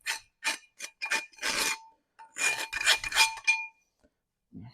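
A hand tool scraping rust and dirt out of the groove in a 2008 Toyota Yaris's cast rear brake drum. It starts as short strokes about two a second, then runs into a longer scrape, with a faint metallic ringing note under the strokes. The rust caked in the groove is what was making the brakes grind.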